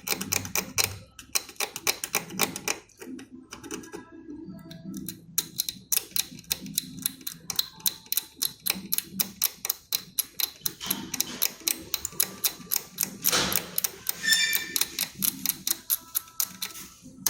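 Rapid, regular clicking, about four to five sharp clicks a second, with short pauses near the start and the loudest stretch near the end.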